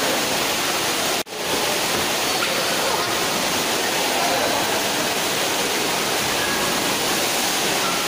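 Water pouring steadily out of water-slide outlets into a swimming pool: a continuous rushing splash, cut off for an instant about a second in.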